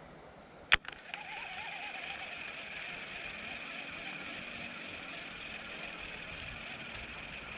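A sharp click a little under a second in, then the steady whirr of a baitcasting reel being cranked to retrieve a lure.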